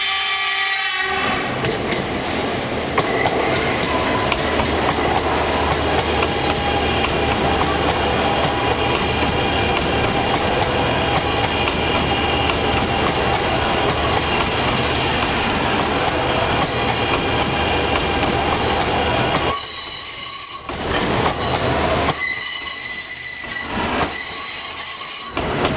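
CRH2C high-speed train arriving: its horn sounds for about the first second, then a long, loud rush of wheels and air as the carriages pass close by. Near the end the rush thins out and high squealing tones come through as the train slows into the station.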